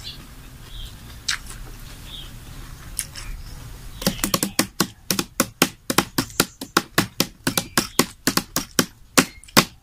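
A person chewing a mouthful of leaf-wrapped miang close to the microphone. From about four seconds in come quick sharp crunching clicks, about four or five a second.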